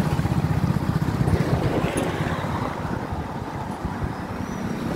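Freight train rumbling steadily across a river railway bridge at a distance, a low continuous rumble.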